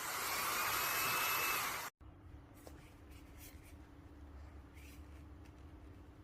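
Xiaomi Mijia cordless handheld vacuum cleaner running with a steady rushing whoosh and a faint rising whine. The sound cuts off abruptly about two seconds in, leaving quiet room tone with a low hum.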